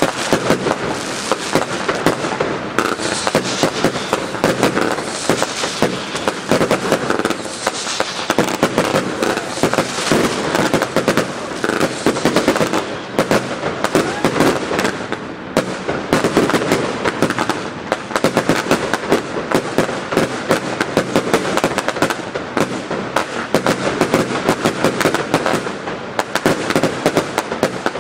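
Fireworks going off without a break: shots launching and bursting overhead, many bangs a second, with crackling in between.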